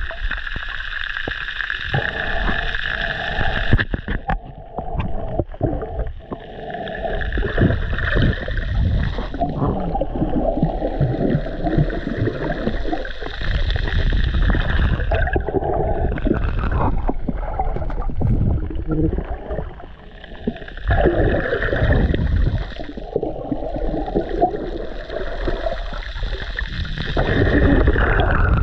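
Muffled underwater noise from a camera held below the surface: water rushing and sloshing as a snorkeler swims, swelling and fading every few seconds.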